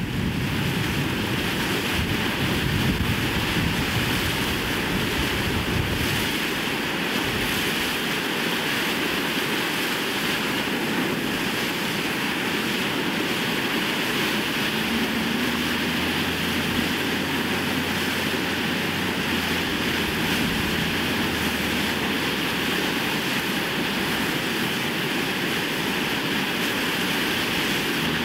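A steady rushing noise that fades in at the start and holds level, with a faint low hum joining it about halfway through.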